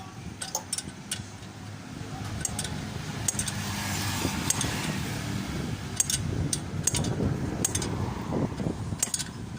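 Light metallic clicks and clinks, as of tools and small engine parts being handled, over a low rumble that builds from about two seconds in and eases near the end.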